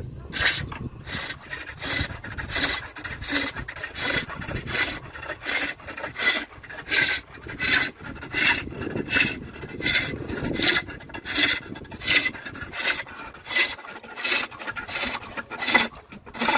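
Turning gouge cutting into a wooden bowl blank spinning on a lathe, heard as a rapid run of short scraping cuts, about two a second.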